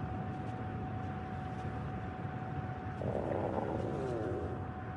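A man's stomach growling: a gurgling rumble begins about three seconds in and lasts about a second and a half, its pitch sliding down near the end.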